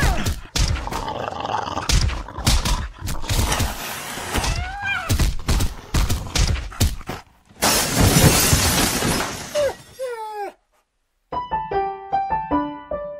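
Cartoon brawl sound effects: a fast, dense run of thuds and crashes with falling, cry-like glides, and a long loud crash about seven and a half seconds in. The din cuts off suddenly, and after a brief silence a light piano tune begins near the end.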